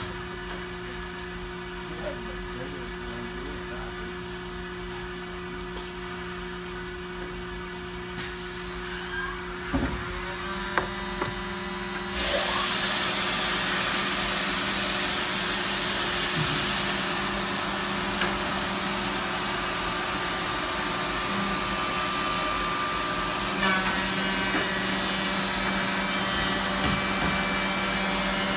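Vector Revolution 180 CNC curved-edge banding machine with a steady hum and a few clicks. About twelve seconds in, a much louder steady rushing noise with a high steady whistle starts and keeps on.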